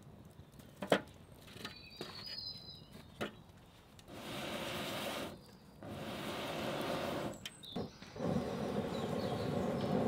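Three long blows through a metal fire-blowing pipe into the embers of a fire pit, each a breathy rush of air, the last one the longest. The blowing is stoking the embers up into flame. Before the blows come a few sharp knocks.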